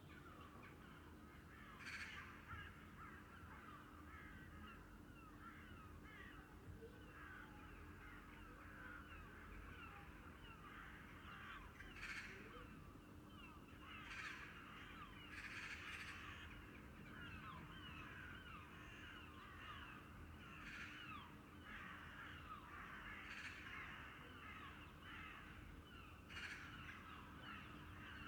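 Faint room tone with morning birdsong coming in through an open window: many small birds chirping without a break, and about seven louder calls standing out now and then. A faint steady low hum lies underneath.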